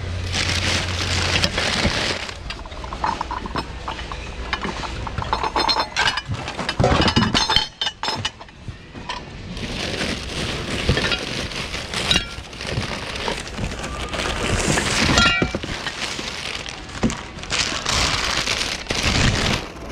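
Hands rummaging through a bin of mixed secondhand goods: continual rustling and shuffling, with clinks and clatters of hard objects knocking together.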